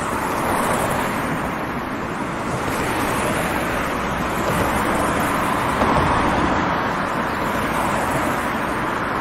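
Steady background noise: an even hiss and rumble with no distinct events.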